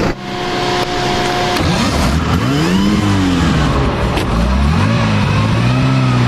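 Classic car engine revved twice, its pitch rising and falling each time, after a steady hum in the first second and a half.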